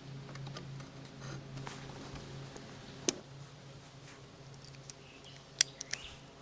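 Hand scraper working old tar off a camper roof: scattered light scrapes and clicks over a steady low hum. There is a sharp tap about three seconds in and a quick cluster of clicks near the end.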